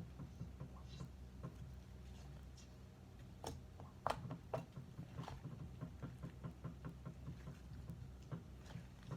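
Slime being squished and worked by hand: an irregular run of small clicks and pops, with a few louder ones about three and a half to five seconds in.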